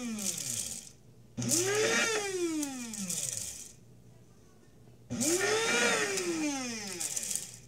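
Electric blade coffee grinder pulsed with the lid pressed down, grinding dried rosemary to powder: the motor whirs up to speed and winds down as the lid is released, in short bursts. One burst is winding down at the start, and two more come about a second and a half and five seconds in.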